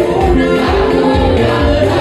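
Gospel praise song: a group of voices singing over band accompaniment, with a steady bass beat about twice a second.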